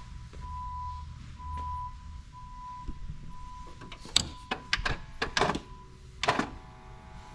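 Sharp clicks and knocks of the superbike's cockpit controls being handled as its electronics are switched on, the loudest knock about six seconds in, followed by a faint steady whine as the system powers up. A short beep repeats about once a second through the first half.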